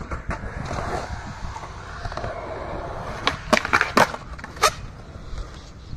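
Skateboard wheels rolling on concrete, then a quick run of sharp clacks about three and a half seconds in as the board pops onto a concrete ledge and grinds it on the truck, with a final clack about a second later as it lands back on the ground.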